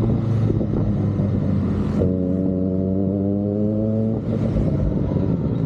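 Kawasaki ZX-25R's inline-four engine through an Austin Racing aftermarket exhaust. About two seconds in, the throttle opens and the pitch climbs steadily for about two seconds, then falls back.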